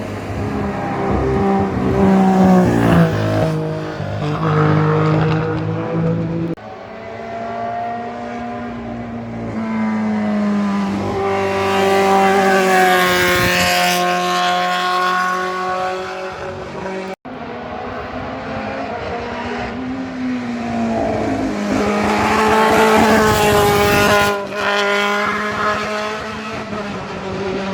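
Historic racing cars on a hillclimb road, one after another, each at full throttle as it passes, the engine note rising and falling with the revs. Three separate passes, the loudest as a car goes by close about halfway through and again near the end.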